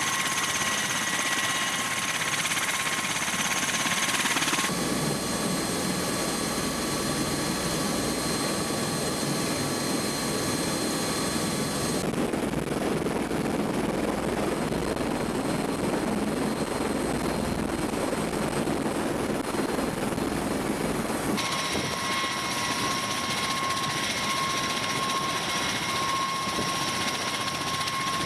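AH-1Z attack helicopter running, its turbine whine and rotor noise steady, with several high whining tones over a broad rush. The sound shifts abruptly about 5, 12 and 21 seconds in, as between different shots.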